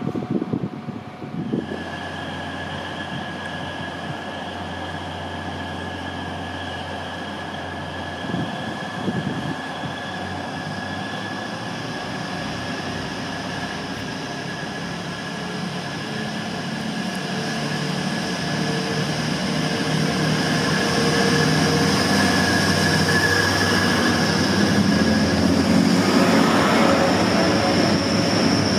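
Hull Trains Class 180 'Adelante' diesel multiple unit approaching and drawing into the platform. Its sound grows steadily louder through the second half, with a steady high whine and the low hum of its diesel engines as it pulls alongside.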